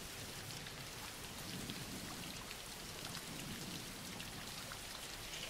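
Recorded rain falling steadily, played as a quiet background bed: an even hiss of rainfall with faint scattered drop ticks.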